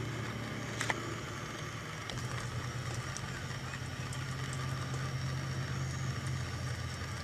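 Steady low machine hum, with a small click about a second in and a slight rise in the hum about two seconds in. No thunder is heard from the constant lightning.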